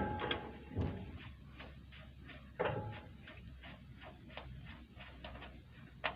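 A run of light clicks or knocks, roughly three a second, with a louder knock about two and a half seconds in, over a faint low hum.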